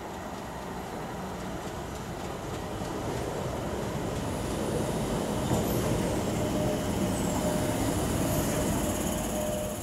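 Tyne and Wear Metro train running into the station platform. It grows louder as it draws near and passes close by, and a thin steady whine comes in about halfway through.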